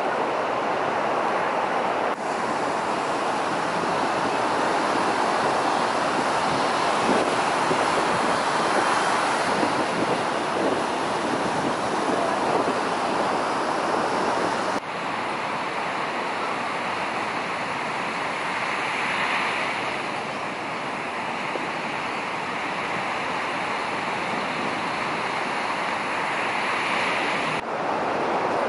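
Waves breaking on a sandy beach: a steady wash of surf mixed with wind, its character shifting abruptly a couple of times.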